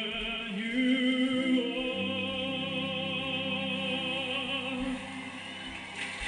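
A man singing a slow ballad into a handheld microphone over instrumental backing, holding one long note with vibrato through the middle.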